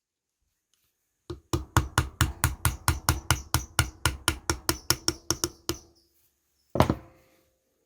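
Hammer tapping metal in a quick, even run of about two dozen light blows, five or six a second, with a faint metallic ring. One harder blow lands near the end and rings briefly.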